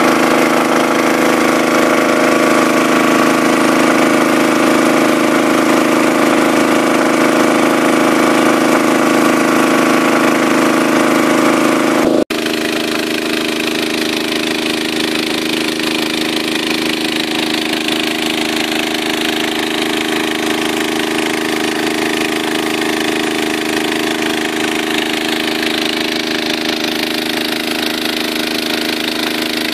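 The 6.5 hp four-stroke petrol engine of a WP 30 motor water pump running steadily under load while pumping. About 12 seconds in the sound cuts abruptly and the engine carries on a little quieter, with a changed tone.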